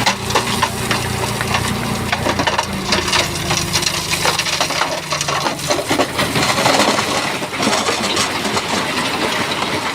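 Shantui bulldozer's diesel engine running as the blade pushes big stones, which clatter and grind against each other. The engine's steady tone fades about halfway, leaving mostly the rock clatter.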